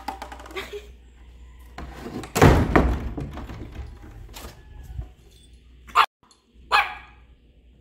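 Thuds and scuffing on a tile floor as a puppy tugs a rubber flip-flop about, with one loud thump about two and a half seconds in and two short sharp knocks near the end.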